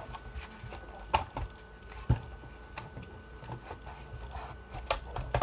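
Parts of a Birch printer being handled and pushed back into place as the thermal head assembly is refitted: scattered knocks and clicks, about a second in, two seconds in and twice near the end, over light rubbing and scraping.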